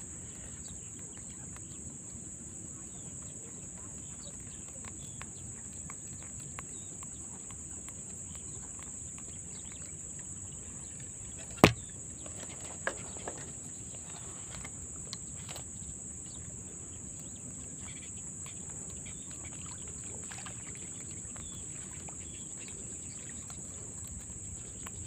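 Steady high-pitched chirring of crickets. About halfway through there is one sharp click, the loudest sound, followed by a few faint ticks.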